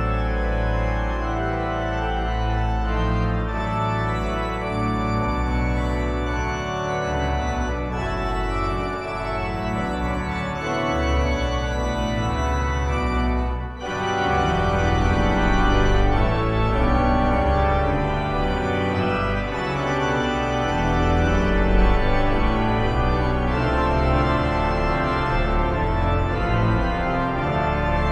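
Leeds Minster's pipe organ playing sustained chords over deep bass notes, with a brief break about halfway through before the chords resume.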